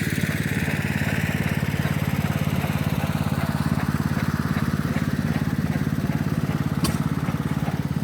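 Engine of a large two-man chainsaw running steadily with a fast, even firing beat, with one sharp click about seven seconds in.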